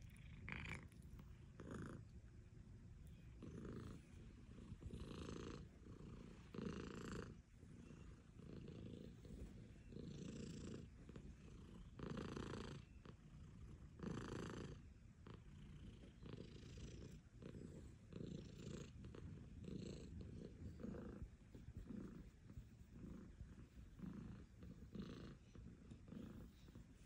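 A domestic tabby cat purring close up while being stroked. The purr is faint and swells and eases in regular waves, about every second or so, with its breathing.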